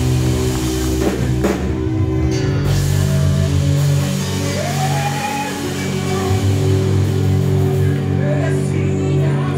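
A live church worship band playing sustained chords over a drum kit, with a cymbal crash about one and a half seconds in and a lead singer's voice over the music.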